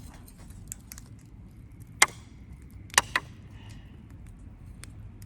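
Three sharp, hard knocks: one about two seconds in, then two in quick succession about a second later.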